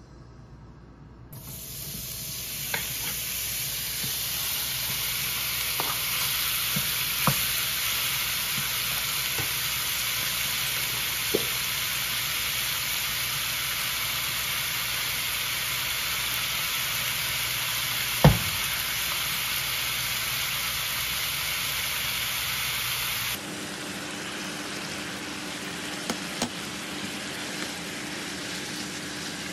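Thinly sliced beef sizzling in hot oil in a frying pan, starting about a second in, with a wooden spatula now and then knocking against the pan and one sharp knock about two-thirds of the way through. Near the end the sizzle turns quieter, with a low steady hum under it, as the beef cooks on with the onions and peppers.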